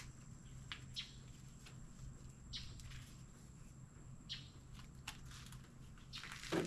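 Faint, scattered rustles and light clicks of hands handling a drill and its sanding disc, with a louder knock near the end, over a faint steady low hum.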